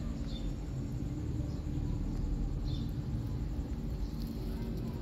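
Steady low outdoor rumble, with a few short, high chirps scattered through it.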